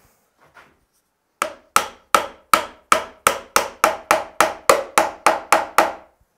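A small hammer tapping a wedge down into the saw kerf in the top of a ball-peen hammer's wooden handle, seated in the steel head's eye. About fourteen sharp, evenly paced taps, roughly three a second, start about a second and a half in and drive the wedge down flush to lock the head onto the handle.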